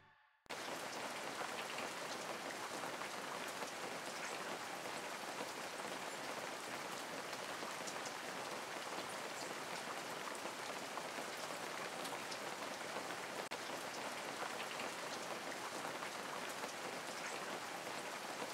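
Steady rainfall: an even hiss of rain with faint patter, starting about half a second in after a brief silence.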